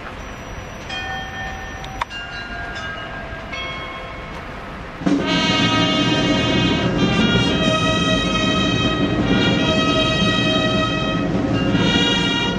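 Fire truck horns sounding in several long overlapping blasts, then about five seconds in a military brass band strikes up and plays loudly.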